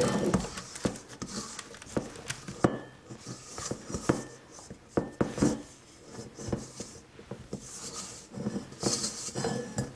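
A spoon or spatula scraping cookie dough out of a mixing bowl, with scraping passages broken up by repeated knocks and clinks of the utensil against the bowl.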